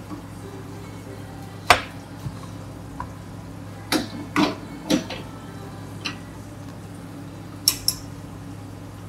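Plastic cups and a metal container knocking and clinking on a counter while an iced drink is made: one sharp knock about two seconds in, a cluster of knocks around four to five seconds, and two quick clinks near the end, over a steady low hum.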